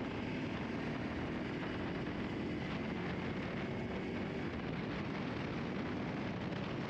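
Honda Super Cub 125's small single-cylinder four-stroke engine running steadily under road and wind noise while riding.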